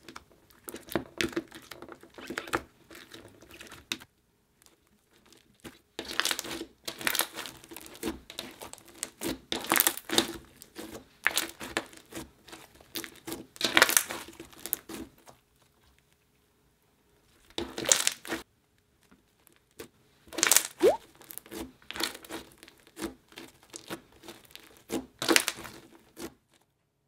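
Pink slime studded with small foam beads being poked, squeezed and stretched by hand: clusters of small sticky clicks and crackles, coming in bursts with short pauses between.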